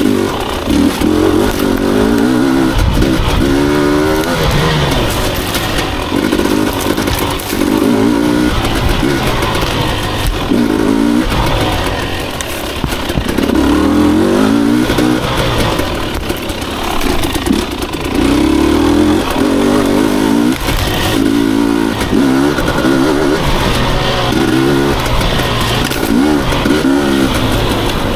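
Husqvarna TE 250i two-stroke enduro bike engine being ridden on a trail, revving up and dropping back again and again in short bursts every couple of seconds as the throttle is worked.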